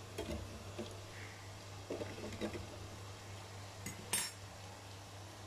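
Chicken nuggets deep-frying in an electric deep fryer, the oil giving a faint steady sizzle over a low hum, with a few light metallic clinks like cutlery against the wire fry basket, the sharpest about four seconds in.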